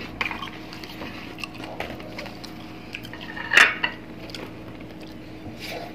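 Close-up eating sounds from a hand-eaten meal: fingers picking at fried fish and scooping burong isda (fermented rice), with small clicks and clinks of plates and a bowl. One louder clink comes about three and a half seconds in.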